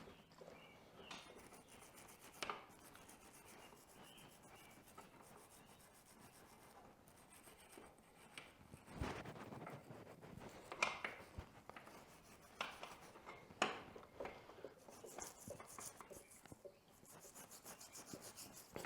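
Faint scrubbing of a small plastic-bristle brush on a dirt bike's rear brake caliper, with scattered light clicks and taps of the part and tool.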